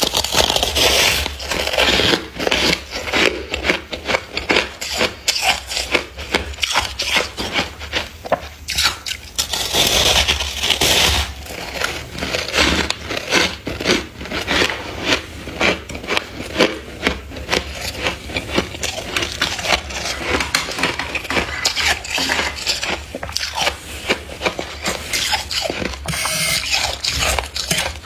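Plastic scraper scraping and chipping thick, snowy freezer frost: a fast, uneven run of gritty crunching scrapes, with a steady low hum beneath.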